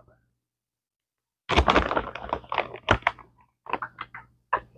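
Crinkly plastic bag of bacon crumbles rustling as a hand digs in, with crumbles sprinkled into a foil baking pan: a dense run of crackles and clicks about a second and a half in, then scattered single clicks.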